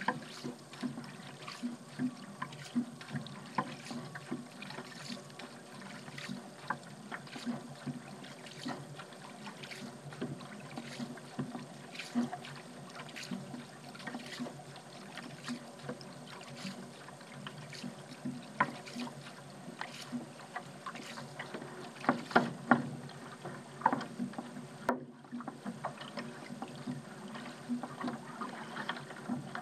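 A paddle dipping into seawater stroke after stroke, with short splashes and drips off the blade over a steady wash of moving water. A few louder splashes come about two-thirds of the way through.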